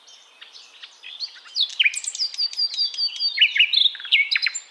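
Budgerigar chatter: a fast run of chirps and short falling whistled notes, getting louder about a second and a half in.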